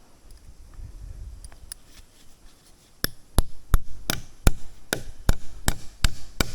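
A quick, even series of about ten hard blows on wood, roughly three a second, starting suddenly about halfway through: a tool chopping or striking wood.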